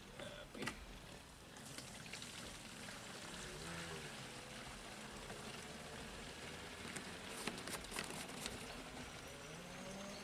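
Coolant draining out of a Caterpillar 3412 diesel engine and pouring steadily into a container, settling into a continuous splashing trickle about two seconds in, with a few light clicks near the end.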